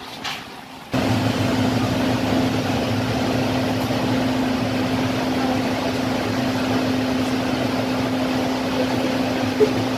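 Steady drone of a car ferry's engines heard on the enclosed vehicle deck: a constant hum over a low rumble, starting abruptly about a second in. A single brief click near the end.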